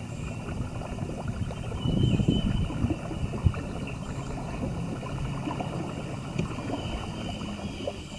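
Water churning and splashing around a kayak driven by a Newport Vessels 55 lb thrust electric trolling motor fitted with an aftermarket cast prop, a little louder for a moment about two seconds in.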